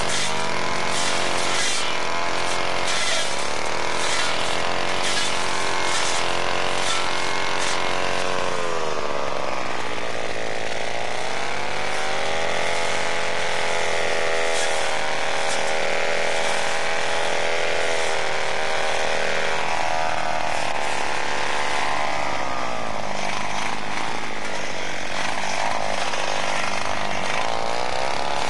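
Petrol brushcutter's two-stroke engine running hard while cutting grass and brush. Its pitch sags and climbs back again a few times as the cutting head takes and sheds load.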